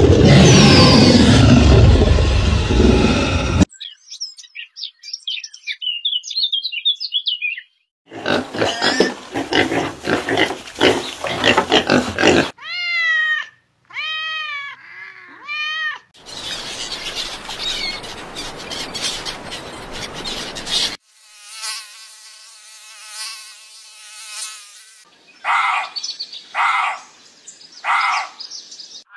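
Several animal calls cut one after another: first a loud, harsh, noisy call, then high chirping, then rapid rasping, then a few arching, wavering cries, then a steady buzzing drone, and near the end three short calls.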